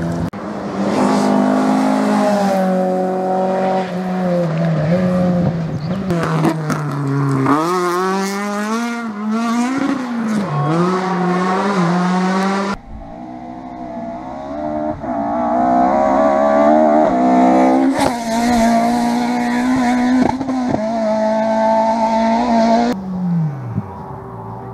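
Rally car engines revving hard along a stage, the pitch climbing and dropping as the drivers change gear and lift off the throttle, with quick up-and-down revving in places. The sound cuts abruptly to a different car about 13 seconds in.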